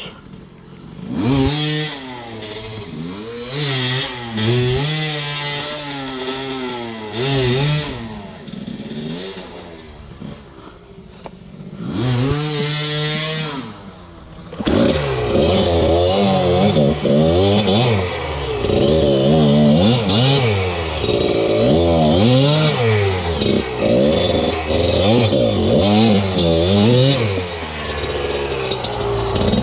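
Enduro dirt bike engine revving up and down in repeated throttle bursts. It eases off around eight to twelve seconds in, then runs louder and busier from about fifteen seconds in.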